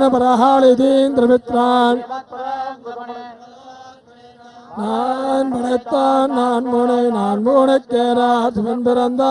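Male priests chanting a devotional hymn into handheld microphones, holding a steady recitation pitch in short phrases. The chanting falls quieter for a couple of seconds in the middle and comes back in full about five seconds in.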